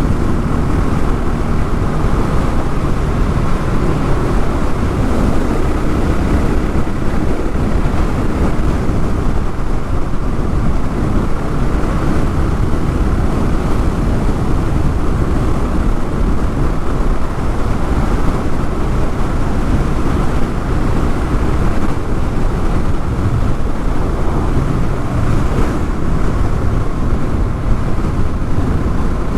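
Honda XR650L's single-cylinder engine running steadily under way, with wind buffeting the microphone.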